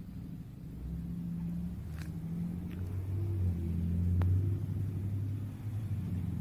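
Low droning rumble of a distant Boeing CH-47 Chinook tandem-rotor helicopter, swelling to its loudest about four seconds in and easing off toward the end, with a few faint clicks.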